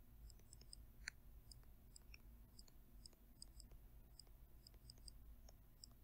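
Near silence with faint, irregular little ticks, several a second, of a stylus tapping and writing on a pen tablet; one tick about a second in is a little louder.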